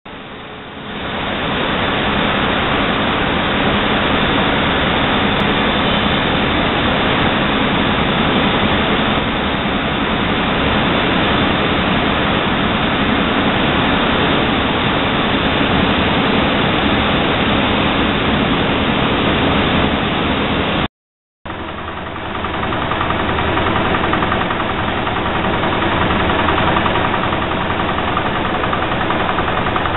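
Tectex tandem needle-punching loom running, a steady loud mechanical din from the needle boards punching an airlaid recycled-fibre web. The noise cuts out for about half a second roughly two-thirds of the way through, then resumes.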